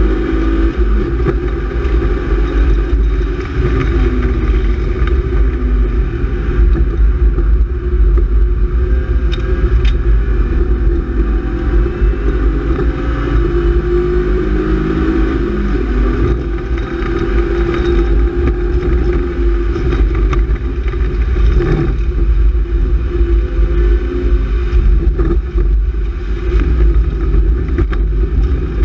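BMW E36 328is straight-six engine heard from inside the cabin under load, its pitch rising and falling repeatedly with throttle and speed, over a steady low rumble and hiss of tyres on a wet track.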